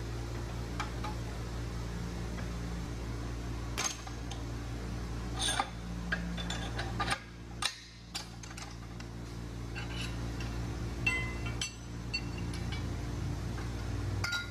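Steel parts of a Pro-Tools MB105HD manual tube bender clicking and clinking as it is worked, over a steady low hum. The clicks come at irregular intervals, with louder ones about four, five and a half, seven and eleven seconds in.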